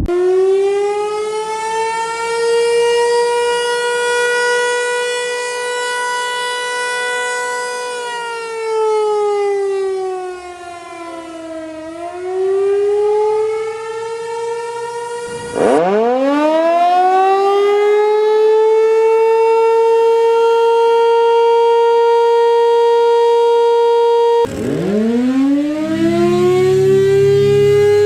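Outdoor warning sirens (tornado sirens) sounding in turn. The first holds a steady rich tone, falls in pitch and rises back about halfway through. It is then cut off, and a second siren winds up from a low pitch to a held note, followed near the end by a third winding up the same way.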